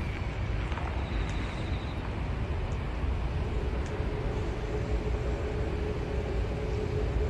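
Steady outdoor rumble and hiss, with a faint steady hum joining about halfway through.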